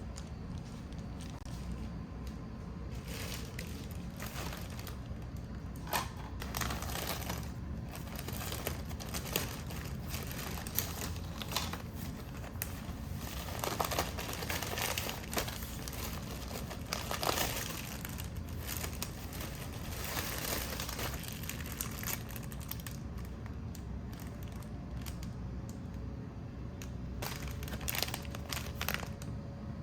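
Packaging being handled and crinkled, in irregular crackling rustles over a steady low hum.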